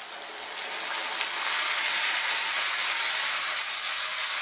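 Pork stock poured into a hot wok, hissing and sizzling as it hits the pan; the hiss grows louder over the first second or two, then holds steady.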